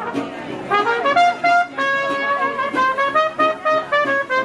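Live jazz band playing, led by trumpet with brass around it, over a steady beat of sharp percussive strokes.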